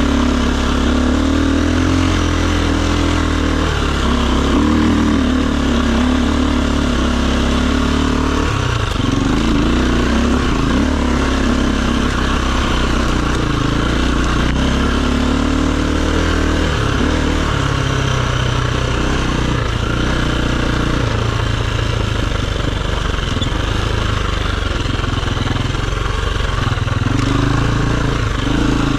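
Enduro dirt bike engine running under varying throttle. Its pitch holds steady for several seconds, then shifts up and down repeatedly.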